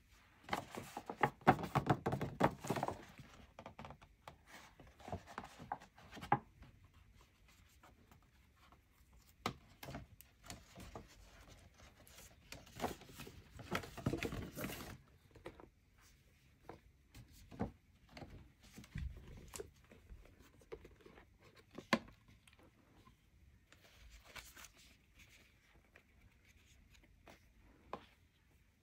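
Stiff paper shopping bag and cardboard packaging being handled: paper rustling and crinkling in bursts near the start and again about halfway through, with scattered single taps and clicks in between.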